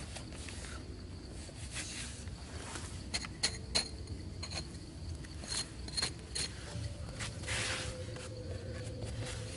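Hands scraping and brushing loose, dry sandy soil, with a series of short sharp scrapes and clicks and one longer scraping rustle near the end.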